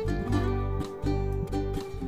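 Background music: a tune of short, quickly fading notes over a steady bass.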